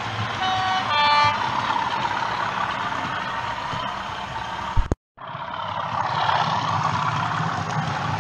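A sound-fitted OO gauge model diesel locomotive's two-note horn toots about half a second in, over the steady running noise of model trains on the track. The sound cuts out for a moment about five seconds in, then the running noise carries on.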